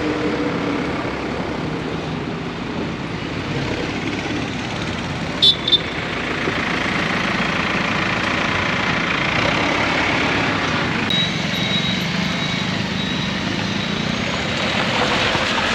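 A heavy vehicle's engine runs steadily under a haze of road noise. Two short, high beeps sound about five and a half seconds in.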